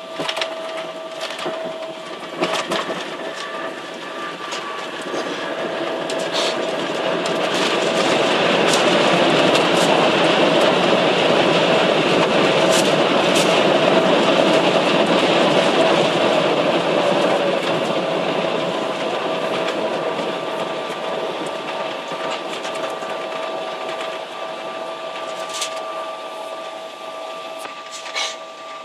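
Boeing 777-300ER heard from the cabin over the wing during the landing rollout, with a few knocks and rattles near the start. The rushing roar of its GE90 engines in reverse thrust then swells for several seconds and slowly fades as the airliner slows on the runway, over a steady whine.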